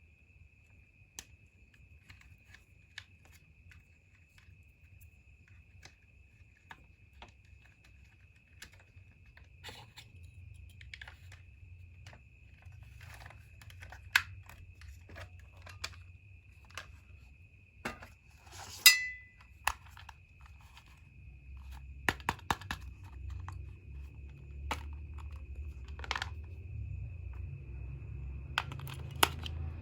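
Scattered clicks and crinkles of plastic toy parts and packaging being handled, with a sharp click a little past the middle. A faint steady high whine runs underneath, and a low rumble builds toward the end.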